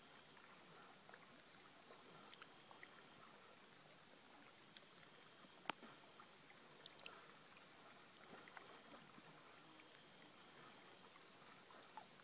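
Near silence: faint outdoor background hiss, broken by one sharp click about halfway through and a few fainter ticks.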